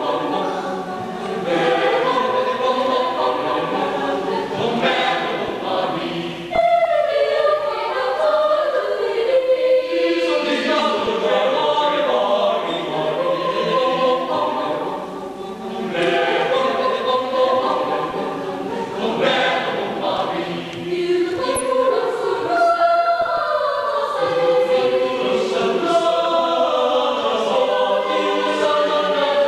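School choir singing a piece in several parts at once, phrase after phrase with short breaths between.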